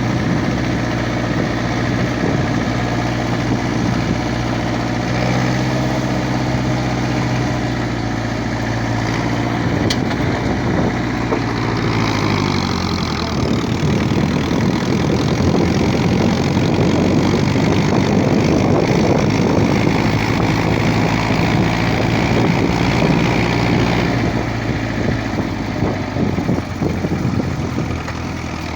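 Old tractor's engine running steadily as it is driven, its note dropping about twelve seconds in and then running rougher.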